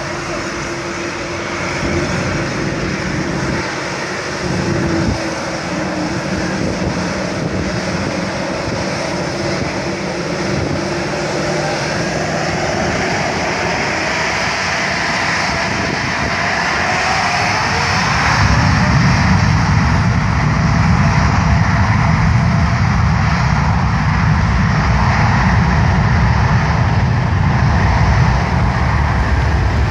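Boeing 787 jet engines spooling up to takeoff thrust, with a whine that climbs in pitch. About eighteen seconds in they give way to a much louder deep rumble as the airliner begins its takeoff roll on the wet runway.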